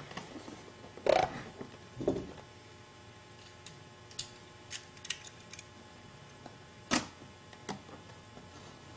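Handling noise from opening a boxed MacBook Pro: a few dull knocks, the loudest about a second, two seconds and seven seconds in, with light clicks and ticks between them.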